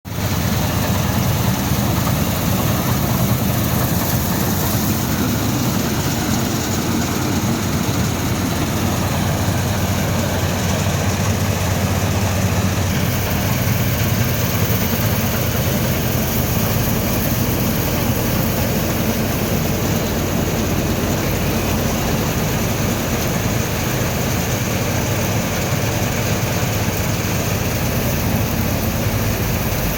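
Preet combine harvester's diesel engine running steadily, a continuous heavy mechanical drone with a low hum.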